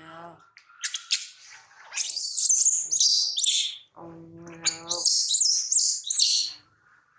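A monkey giving shrill, high-pitched squealing calls that waver up and down in pitch, in two bouts of a second or more each.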